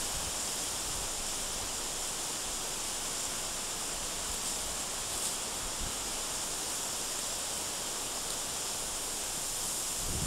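A steady, even outdoor hiss with no distinct events.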